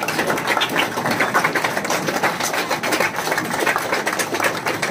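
Applause from a room full of students: many hands clapping in a dense, steady patter.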